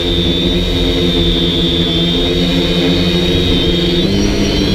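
DJI Flame Wheel F450 quadcopter in flight, heard from on board: a steady propeller buzz with a high motor whine above it. About four seconds in the pitch shifts as the motor speeds change.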